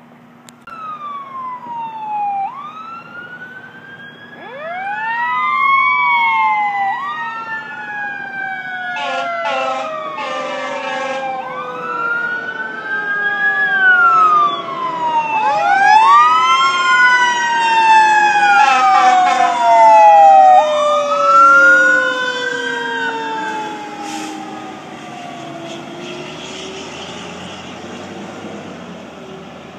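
Several emergency-vehicle sirens from responding fire engines and police cars, wailing and overlapping, their pitch rising and falling. They grow louder, peak past the middle and fade near the end, with a couple of short blasts about ten seconds in.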